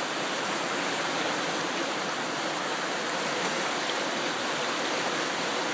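Floodwater of a river running over its banks, a steady rushing roar of fast-moving water.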